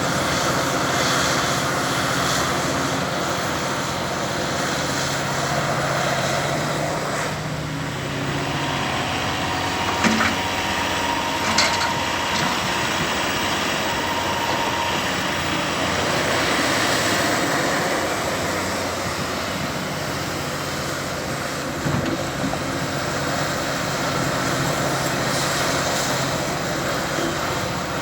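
Caterpillar 352F hydraulic excavator's diesel engine running under working load, its pitch swelling and easing, with a few sharp metallic clanks from the machine.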